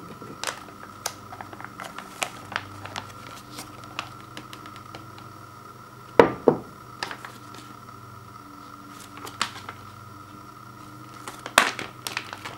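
Plastic microwavable rice pouch crinkling in the hands as it is squeezed and tipped to empty the rice into a ceramic bowl. Scattered crackles, with louder ones at the start, about halfway and near the end.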